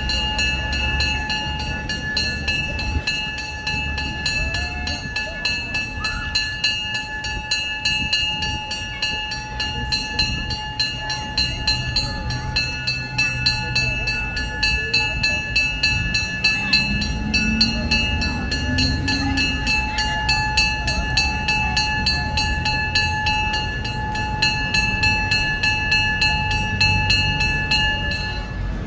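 Train-show sounds from the Stockton Flyer kinetic sculpture: a steady, high whistle-like tone held throughout over a rapid, even clicking and a low rumble, ending abruptly.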